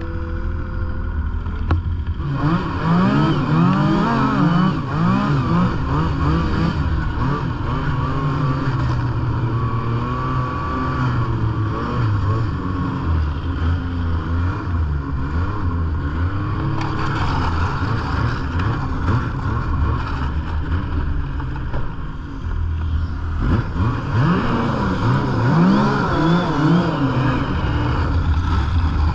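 Yamaha snowmobile engine under throttle while riding, its pitch sweeping up and down with the throttle. It revs up hard about two seconds in, eases off briefly near the 22-second mark, then picks up again.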